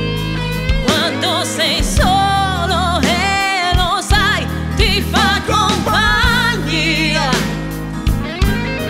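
A woman singing a pop song into a microphone over a live band, her held notes wavering with vibrato.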